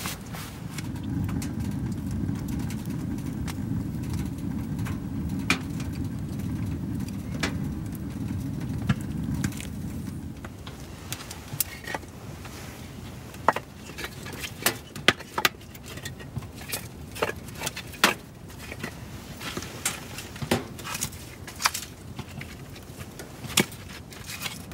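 Someone tending a small wood-burning stove and handling split firewood: a low rustling rumble for about the first ten seconds, then scattered sharp clicks and knocks of wood and metal.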